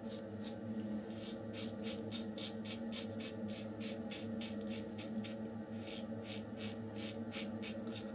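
RazoRock German 37 Slant safety razor scraping through lathered stubble in short, quick strokes, about four a second.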